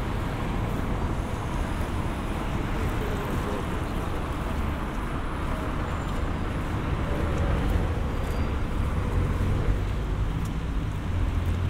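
Road traffic: a steady low rumble of passing cars.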